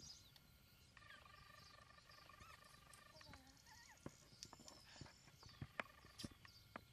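Near silence, with faint scattered clicks and smacks from a roe deer fawn licking and nuzzling at close range, most of them in the second half.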